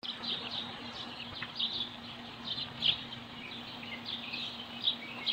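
Small birds chirping repeatedly, in short clusters of high calls, over a faint steady low hum.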